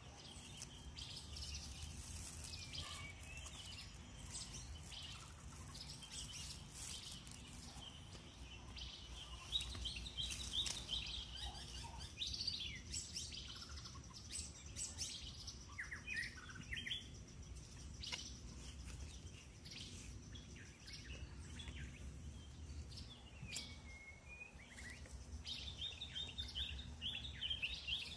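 Wild birds chirping and calling, many short chirps through the whole stretch, over a steady low background hum. A few sharp ticks come around the middle.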